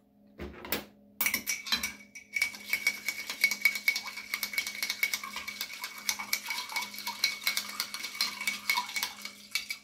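Long bar spoon stirring ice in a glass mixing glass: a fast, continuous clinking of ice and spoon against the glass, with a light ringing of the glass. It starts about a second in, after a couple of knocks, and runs until just before the end.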